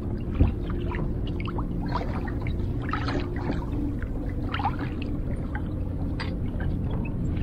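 Lake water sloshing and gurgling around a kayak and a landing net dipped in the water while a hooked king salmon is brought to the net, over a steady low rumble.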